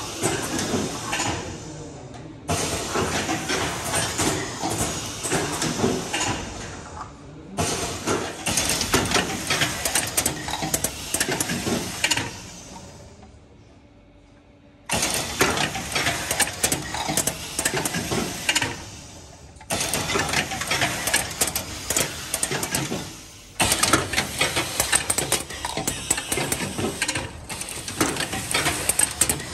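Automatic cup filling and foil-sealing machine running: dense, rapid clicking and clattering from its rotary indexing mechanism, heard in segments that change level abruptly, with a much quieter stretch a little past the middle.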